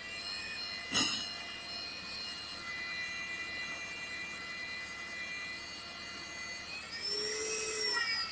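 Magnetic drill motor running with a steady whine as its cutter bores through 20 mm steel plate. There is a sharp click about a second in. Near the end the machine gets louder and its pitch rises and then falls.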